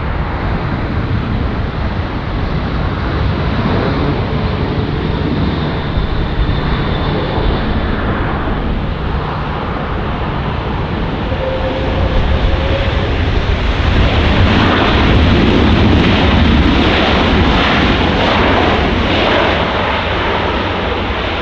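Jet engines of a widebody (heavy) airliner on final approach for landing, a steady roar that builds to its loudest about two thirds of the way through as it comes closer, with a faint engine whine partway through.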